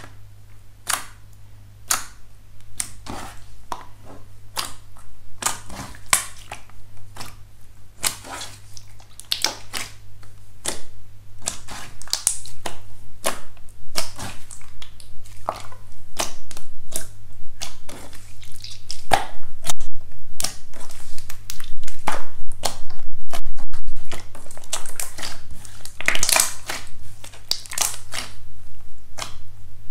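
Slime being pressed, stretched and kneaded by hand, giving a dense run of crackling, popping clicks that grows louder about halfway through.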